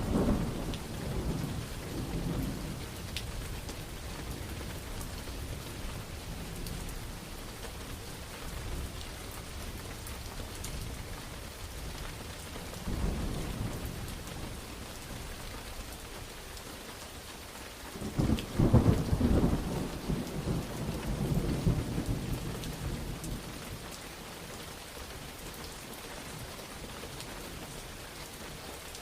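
Steady rain with thunder rumbling: a rumble dying away at the start, a softer roll about halfway through, and a loud thunderclap about two-thirds in that rolls on for several seconds.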